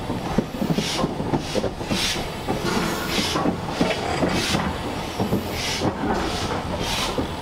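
Steam locomotive working under steam, its exhaust chuffing in a steady run of about one to two beats a second, over the knocking and rattling of wheels and carriages.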